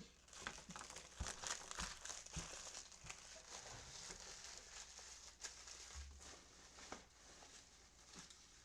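Faint crinkling and rustling of plastic card packaging being handled, with scattered small clicks.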